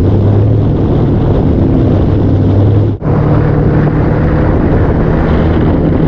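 Moto Guzzi V100 Mandello's liquid-cooled 90-degree V-twin running steadily under way, heard from the bike with wind rush. About three seconds in the sound briefly drops out, then the engine runs on at a slightly higher pitch.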